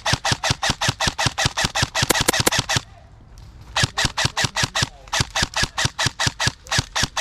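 Airsoft electric rifle firing strings of rapid shots, about seven a second, with two short pauses between the strings.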